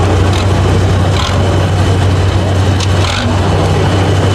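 Diesel engine of a Tatra 815 6x6 trial truck running with a steady low drone as the truck crawls slowly up a steep dirt climb under load.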